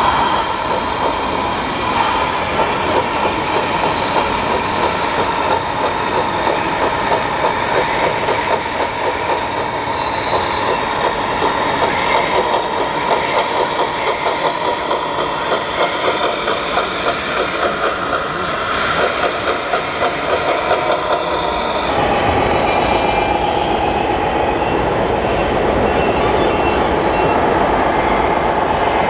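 RC Cat D10T bulldozer's tracks clattering, with a steady whine from its drive as it pushes dirt. About 22 seconds in, the sound changes abruptly to a steadier running sound from a scale logging truck.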